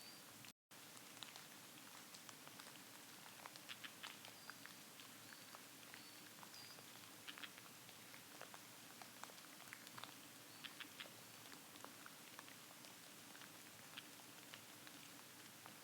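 Faint, scattered ticks and rustles, with a few short, thin, high call notes from a small bird every second or so.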